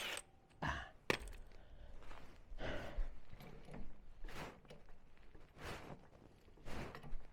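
A man's breaths and sighs of effort, about six in a row, with a sharp click and a few light knocks as a car wheel is worked off its hub.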